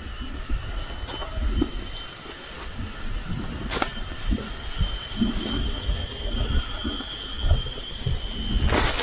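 Forest insects holding a steady high-pitched drone, with further shrill tones joining in a couple of seconds and about five seconds in. Beneath it come soft thuds and rustling in dry leaf litter, and one sharp knock near the middle, as a wooden pole is worked into the ground and soil is pressed around its base.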